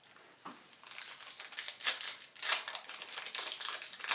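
Foil booster pack wrapper crinkling as it is handled and torn open, in irregular crackly rustles that start about a second in.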